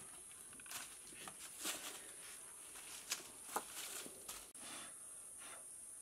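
Scattered rustles, scrapes and light knocks of a person climbing over rock and dry leaves, over a steady high-pitched insect buzz; the rustling stops about four and a half seconds in.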